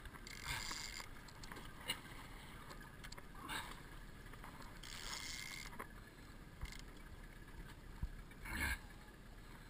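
Faint wind and water noise around a small aluminum boat, with a few short hissy scuffing noises and one sharp click about two seconds in.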